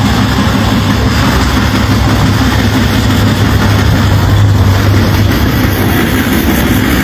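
A vehicle engine running steadily, its low hum a little louder about four seconds in, under a constant rushing noise.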